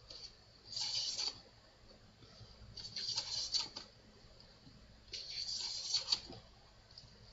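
Hand plane taking shavings from a wooden workbench leg: three rasping strokes about two seconds apart.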